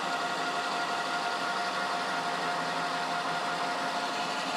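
American Tool Works lathe running steadily while a turning insert faces the end of a 1.5-inch metal bar: a constant machine hum with a steady tone through it.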